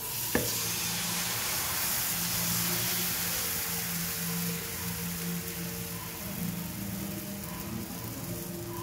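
Dosa batter sizzling on a hot cast-iron dosa tawa as it is ladled on and spread: a hiss that starts suddenly and slowly dies down.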